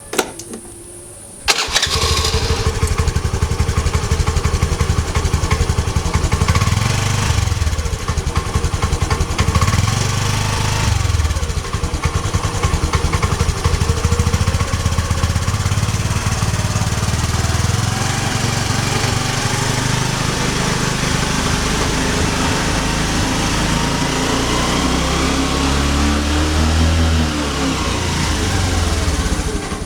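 Motorcycle engine starting: a click, then the engine catches about one and a half seconds in and runs with a fast, even firing beat, swelling with a few throttle blips before it cuts off at the end.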